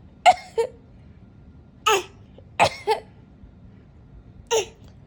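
A person coughing: four short, sharp coughs about a second or more apart, two of them with a quick second cough right after.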